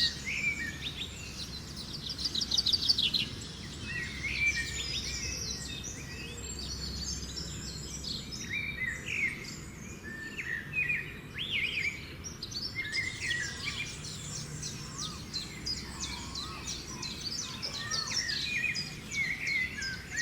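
Weaver birds singing and chattering together, with overlapping fast buzzy trills and short chirps, over a steady low rumble.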